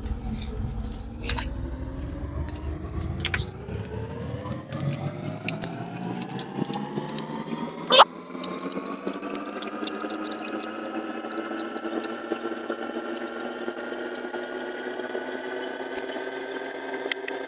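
Small clicks and taps of tiny wheel parts and screws being handled while a 1-inch beadlock RC crawler wheel is assembled. Under them runs a steady hum that rises in pitch over the first ten seconds and then holds. One sharp click about eight seconds in is the loudest sound.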